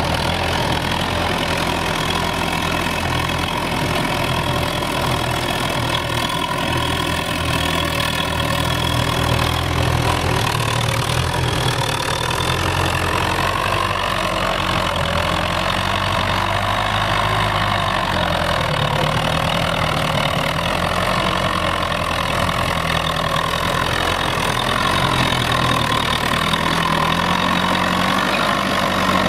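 Tractor diesel engine running steadily under load while pulling a plough through frozen, snow-covered soil, its pitch rising and dipping slightly as the load changes.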